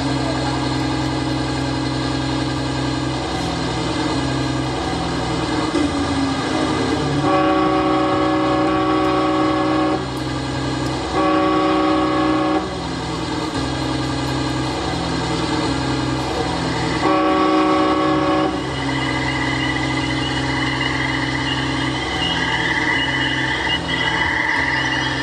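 Recorded train sound effect played over loudspeakers: a train running steadily, with three long horn blasts, the first about seven seconds in, the others about four and ten seconds later.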